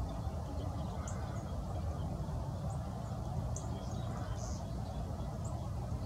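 Steady low rumble of wind on the microphone, with a few short, high chirps from small birds scattered through it.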